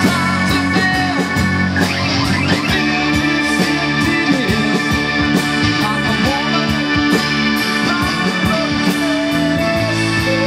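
Live rock band playing: electric guitar, bass guitar and keyboards over a steady drum beat.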